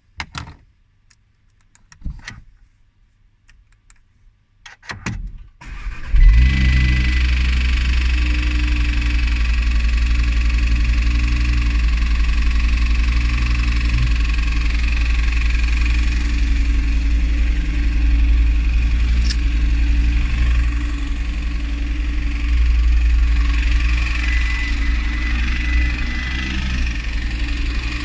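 A few clicks, then the Audi TT RS's turbocharged five-cylinder engine cranks and starts about six seconds in, flares briefly and settles into a steady idle. The idle carries the knocking sound the owner is showing.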